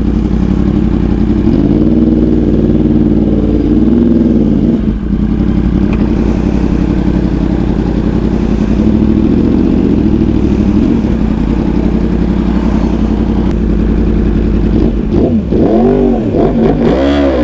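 2019 Yamaha R1's crossplane inline-four running through an SC Project CRT titanium exhaust. It is blipped once about two seconds in, runs steadily through the middle, and is revved several times in quick succession near the end.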